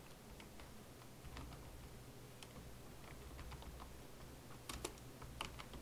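Computer keyboard being typed on: faint, irregular keystrokes, with a few louder key presses near the end.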